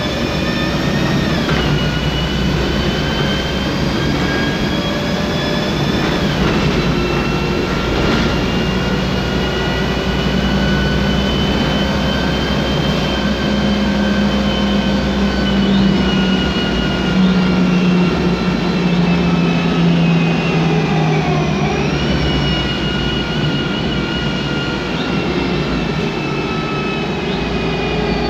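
Interior sound of a MAN Lion's Classic city bus under way: its MAN E2876 CNG engine running under a loud whine from the Voith DIWA 864.3 automatic gearbox. The whine climbs slowly as the bus gathers speed and drops sharply a few times, about a second and a half in, around six seconds in, and again in a dip past twenty seconds.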